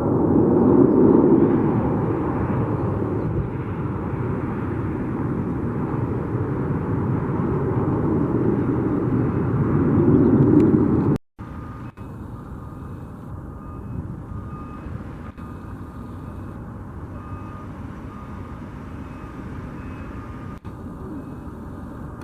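An airliner's engines rushing loudly past, swelling twice, then cutting off abruptly about eleven seconds in. After that a quieter steady airport hum carries a ground vehicle's reversing beeper sounding short single beeps about once a second.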